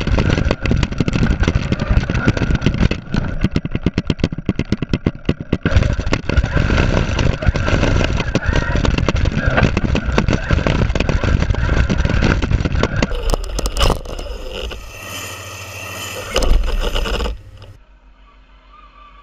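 Onboard sound of a radio-controlled car driving fast over tarmac: a dense, rattling rumble of tyres and chassis vibration. It changes character about two-thirds of the way through and drops to a much quieter background near the end, when the car has stopped.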